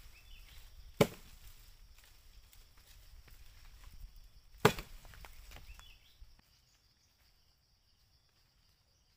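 Two sharp wooden knocks about three and a half seconds apart, over a low rumble that stops about six seconds in. Insects drone faintly and steadily throughout.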